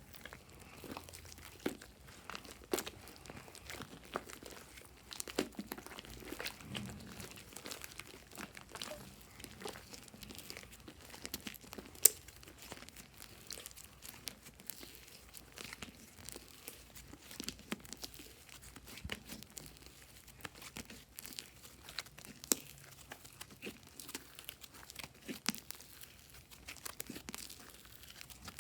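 Slime being kneaded and stretched by hand, giving irregular crackling and small popping clicks, with one sharper snap about twelve seconds in.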